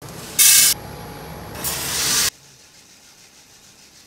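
Coffee beans poured from a cup into a coffee roaster's stainless-steel hopper, in two loud rushes. The sound cuts off suddenly a little over two seconds in, leaving faint room hiss.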